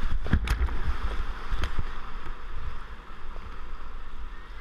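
Whitewater rapids rushing around a kayak, heard from a camera on the boat: a heavy rumble of water buffeting the microphone, with sharp splashes about half a second in and again at about a second and a half.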